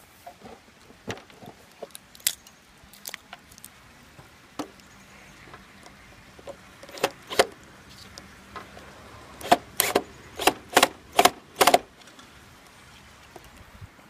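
Sharp clicks and knocks from fastening a wooden bee swarm trap box to a tree trunk with a cordless drill. They come scattered at first, then as a quick run of about seven loud knocks about two-thirds of the way in.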